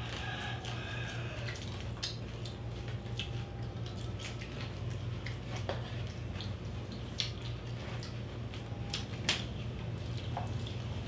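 Close-up eating sounds of people chewing roast pig (lechon) pulled apart by hand: scattered wet clicks and smacks from mouths and fingers, over a steady low hum.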